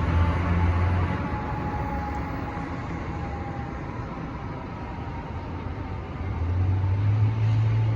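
Fire apparatus responding: engine and road noise with a faint siren tone slowly falling in pitch. A deep, steady drone swells loud over the first second and again from about six seconds in.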